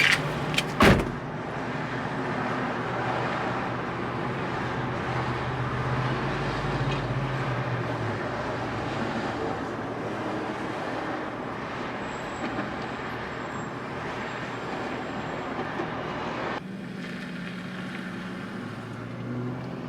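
A car's cabin noise while driving: a steady rumble of engine and road noise with a low hum. It opens with two sharp knocks within the first second, and the level drops abruptly near the end.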